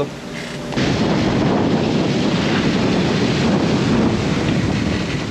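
Wind buffeting the microphone with the rush of sea water, from a sailboat under way in strong wind. It sets in abruptly less than a second in and holds loud and steady.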